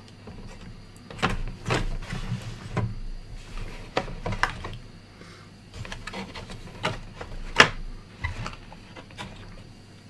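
Handling noise from a motherboard being moved about on its cardboard box: irregular knocks, clicks and rubbing, with the loudest knock about three-quarters of the way through.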